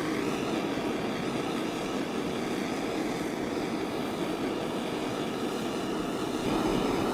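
Mini kitchen blowtorch burning with a steady flame, played over sugar-topped peach halves to melt and caramelize the sugar into a crust; it gets a little louder near the end.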